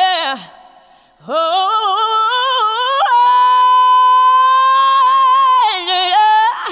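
A single high voice singing without accompaniment. A note swoops down and fades about half a second in, then after a short gap the voice rises into a long held high note that wavers into vibrato near the end.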